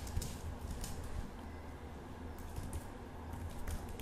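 Computer keyboard keys clicking in irregular runs of keystrokes as a command is typed.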